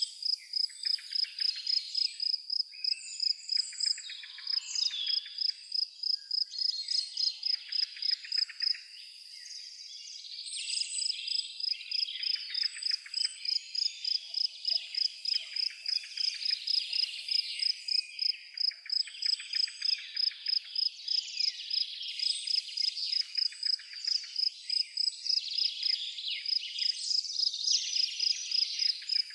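A cricket chirps steadily at about three high chirps a second, pausing briefly about nine seconds in. Birds sing varied twittering songs over it.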